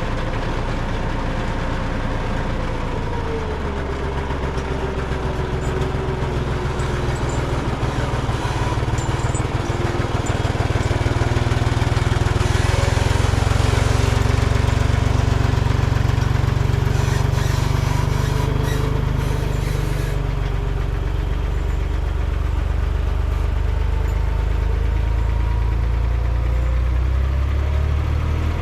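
A heavy vehicle engine running steadily, with its pitch sliding down a few seconds in. It works harder and louder from about ten seconds in until about twenty seconds in.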